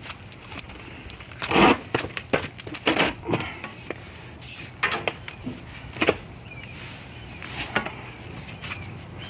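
Hand-handling noise: a rubber strip being worked into place against the car's sheet-metal radiator support, giving a series of short knocks, clicks and crackles. Faint bird chirps in the second half.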